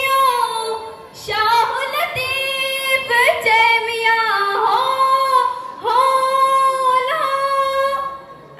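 A girl sings solo and unaccompanied into a microphone: a Sindhi devotional song in praise of the Prophet. She holds long notes with gliding ornaments, in several phrases broken by short breaths.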